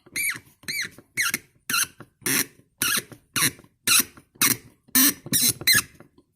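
A screw being driven into the carburetor casting by hand, squeaking sharply with each twist of the screwdriver: about a dozen short squeaks, roughly two a second, each rising and falling in pitch.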